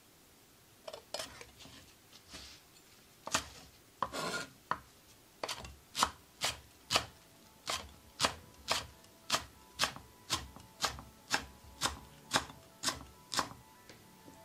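Kitchen knife chopping mitsuba finely on a wooden cutting board: a few irregular taps and a brief scrape, then steady knocks of the blade on the board about twice a second.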